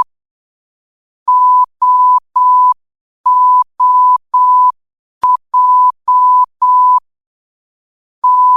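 Morse code sent as a single-pitch beep tone keyed on and off: groups of long dashes, one short dot, and pauses between letters, about ten tones in all.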